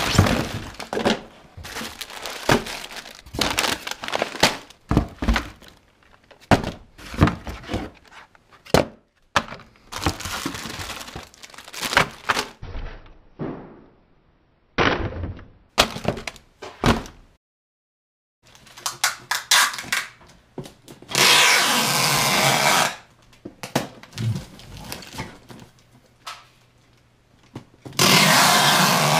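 Snack bags and small packages crinkling, rustling and knocking against cardboard as they are packed into a box. Later come two long rasping strips of packing tape being pulled across the box's top.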